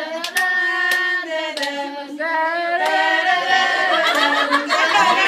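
A small group of people singing a song together in long held notes, with a few hand claps.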